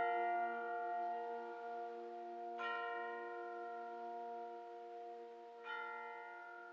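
Chimes (tubular bells) struck twice, about three seconds apart, each stroke ringing on over a held chord that slowly fades away.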